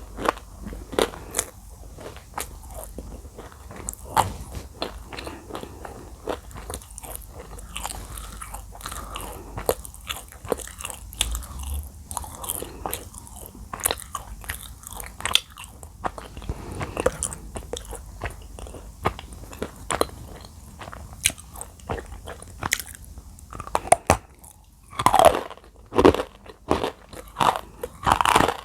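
Close-miked biting and chewing of dry edible clay (Nakumatt clay), a dense run of sharp, crackling crunches, with a few louder crunching bites near the end.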